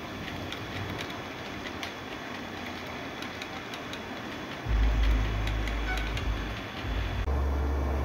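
HO-scale model train rolling along the track, its coil-carrier wagons clicking over the rail joints over a steady hiss. A little past halfway a loud low rumble sets in and stays.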